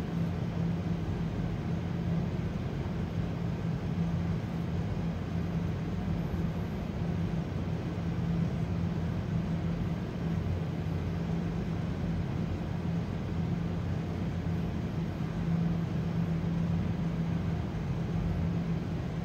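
Steady low machine hum with a droning tone, unchanging throughout.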